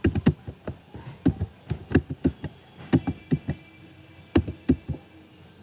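Computer keyboard typing: a string of irregular key clicks, with a short pause a little past halfway.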